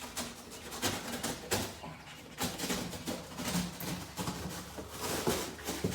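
Styrofoam packing and cardboard being handled while a machine is unpacked: irregular rustling and scraping.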